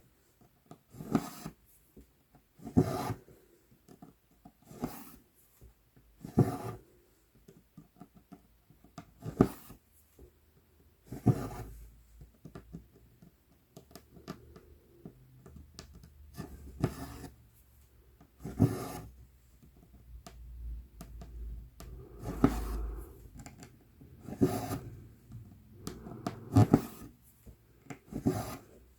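Cross-stitch floss being pulled through 11-count Aida cloth: a rasping pull every one to three seconds, with softer rubbing of thread and fabric between.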